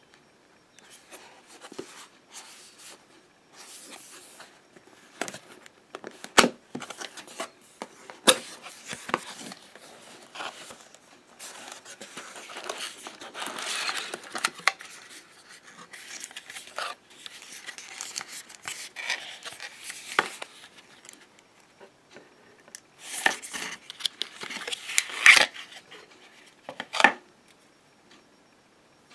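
Hands opening a small cardboard product box and handling what is inside: cardboard scraping and rustling, the wrapping crinkling, and several sharp clicks and knocks as the flaps and inner tray move. It goes quiet near the end.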